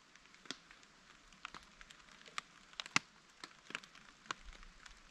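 Raindrops tapping on a tarp overhead: irregular sharp ticks, a couple a second, over a faint hiss.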